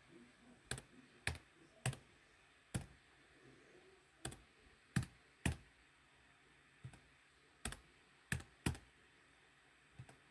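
Computer keyboard keys pressed one at a time, about a dozen sharp clicks at an uneven, unhurried pace, as an IP address is typed in.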